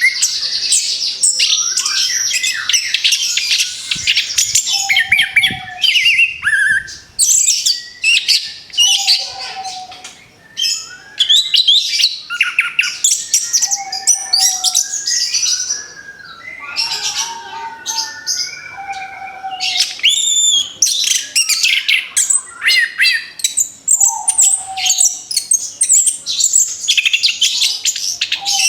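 Orange-headed thrush (anis kembang) singing a fast, varied run of whistles and chirps, with a short lower whistled note coming back every four to five seconds.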